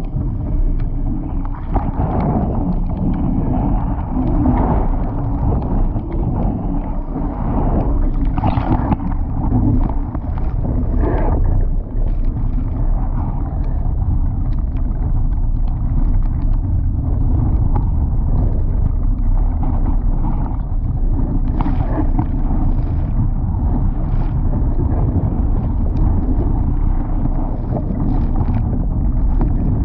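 Wind buffeting the microphone and water rushing along the hull of a Laser dinghy sailing fast on a reach in gusty wind, with short bursts of spray splashing every few seconds.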